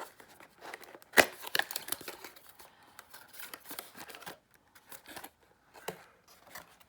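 Packaging being handled and opened: rustling with scattered clicks and knocks, the loudest a single sharp knock about a second in.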